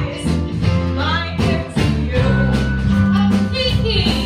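A woman singing a Christmas show tune from a stage musical with a live band accompanying her, sustained bass notes underneath.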